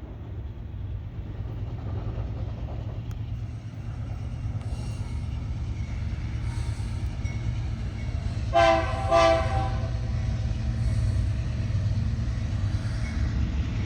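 Union Pacific freight train rolling past with a steady low rumble that slowly grows louder; about eight and a half seconds in, the locomotive's air horn sounds two short blasts, a horn show for the trackside watcher.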